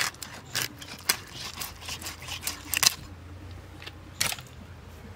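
Pieces of a large silver carp being cut on a boti blade: a string of irregular sharp clicks and cuts, loudest as a pair near the three-second mark and again about four seconds in.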